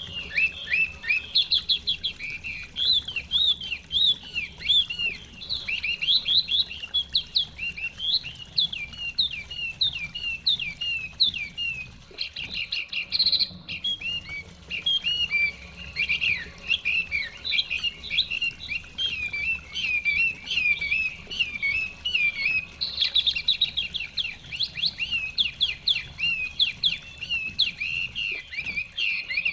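Chinese hwamei (họa mi) singing a long, fast run of varied whistled notes, with a brief pause near the middle.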